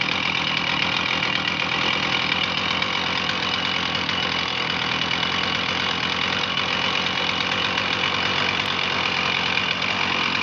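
Stihl MS 460 Magnum two-stroke chainsaw engine idling steadily.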